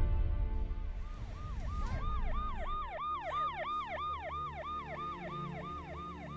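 Electronic warbling alarm tone, like a siren yelp, rising and falling about three times a second; it fades in about a second in over soft background music.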